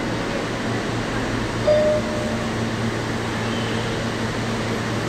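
Steady hum of a standing R160 subway train's ventilation and onboard equipment at the platform, with a brief tone about two seconds in.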